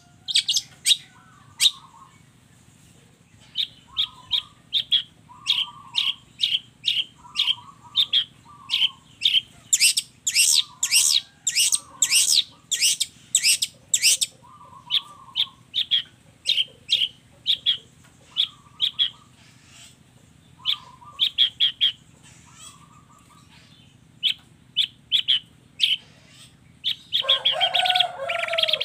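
Long-tailed shrike (cendet) singing: a fast series of short sharp chirps, about two a second, often paired with lower buzzy notes. Near the end the song breaks into a dense, harsh chattering burst.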